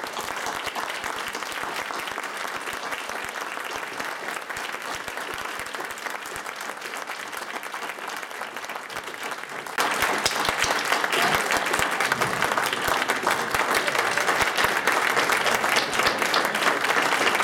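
Audience applauding, a dense patter of many hands clapping that grows suddenly louder about ten seconds in.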